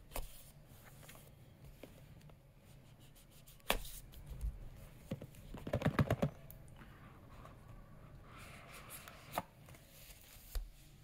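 Cardboard phone box being opened by hand: a knife nicks through the seal sticker, then a quick run of clicks and scrapes about six seconds in, the loudest part, as the lid is worked off, and a soft sliding rustle near the end.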